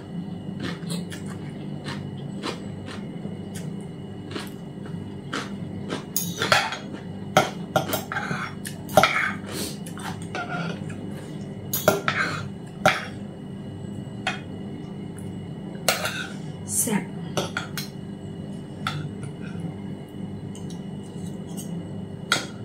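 Metal fork and spoon clinking and scraping against a plate while eating, in many short irregular clinks, busiest in the middle stretch.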